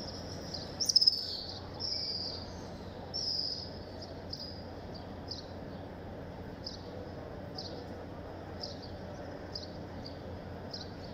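Small birds chirping in short high notes, roughly once a second, with a louder chirp about a second in, over the steady murmur of a large crowd.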